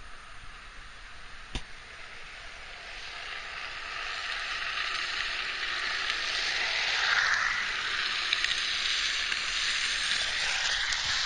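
Drift trikes sliding downhill past on their hard plastic rear-wheel sleeves: a hiss of plastic scraping on asphalt that builds from a few seconds in and is loudest about seven seconds in.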